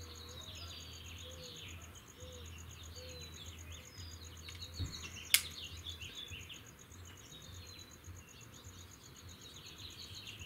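Outdoor ambience: birds chirping and an insect trilling steadily on one high pulsing note. About five seconds in comes a single sharp click.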